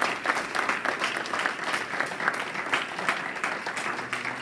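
Audience applauding, with one person clapping close by.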